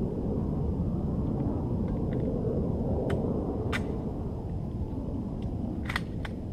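Steady low outdoor rumble with a few sharp metallic clicks of hands working a K98k Mauser rifle's bolt and action between shots. There is a single click about three seconds in, another shortly after, and a quick cluster of clicks, the loudest, about six seconds in.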